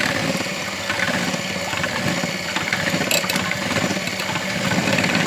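Electric kitchen mixer running steadily, its beaters blending banana and water into a smoothie-like mix.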